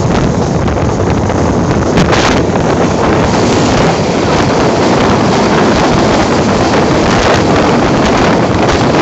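Loud, steady rush of wind buffeting the microphone outside a moving passenger train's window, mixed with the rumble of a container freight train passing close alongside on the adjacent track. There is a brief louder burst about two seconds in.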